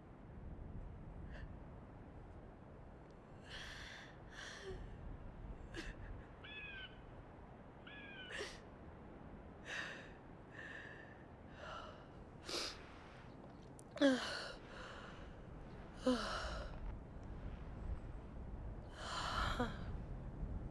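Soft, breathy gasps and sighs, one after another, with a couple of short rising chirps between them.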